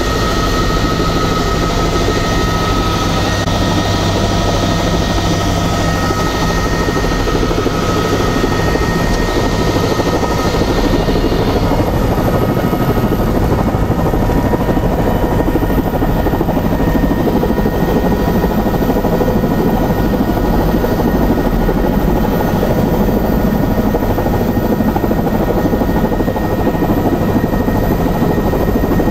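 Tour helicopter's engine and rotor heard from inside the cabin: a loud, steady drone with a thin high whine, as the helicopter lifts off and climbs away. About twelve seconds in the high whine rises slightly in pitch.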